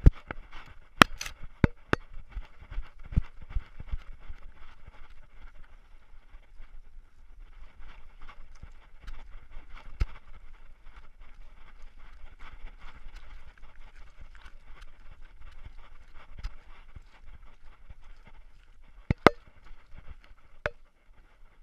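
Collar-mounted GoPro Hero3 camera jostled as the dog moves: a steady rattling with sharp knocks scattered through it. The knocks come in a cluster in the first few seconds and again loudly near the end.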